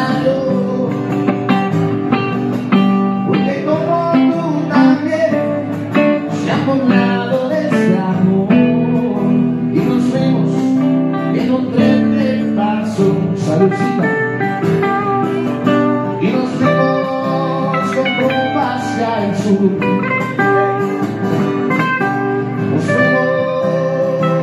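Live acoustic rock music led by guitars, with plucked lead lines over sustained chords.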